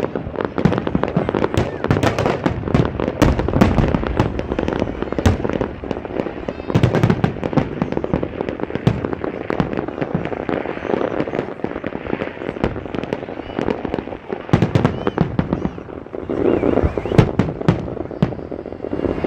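Aerial fireworks bursting in rapid, overlapping bangs and crackles. They are densest in the first few seconds, thin out through the middle, and come in another heavy cluster about fifteen seconds in.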